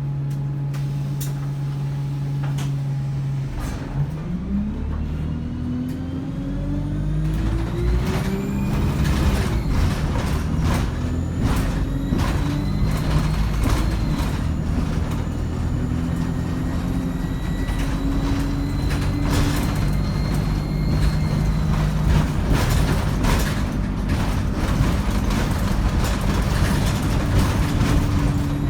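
ADL Enviro 200 bus with a three-speed Voith automatic gearbox, idling and then pulling away about four seconds in. The engine note and a high turbo and gearbox whine rise, change near nine seconds, then run on fairly steady with rattles.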